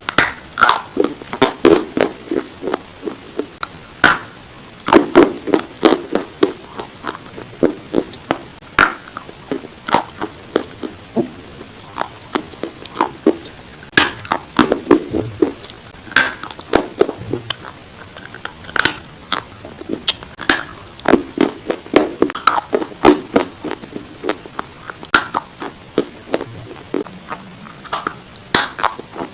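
Dry baked clay from a clay pot being bitten and chewed close to the microphone: sharp, crunchy cracks in irregular clusters, several a second.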